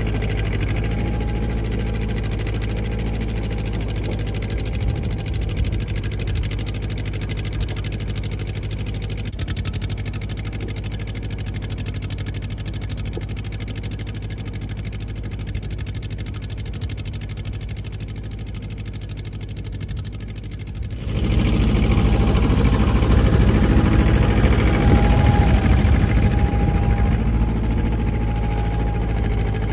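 Ford 1700 compact tractor's three-cylinder diesel engine running steadily as it pulls a single-bottom plow breaking new ground. It eases slightly as the tractor draws away, then becomes suddenly louder and closer about two-thirds of the way through.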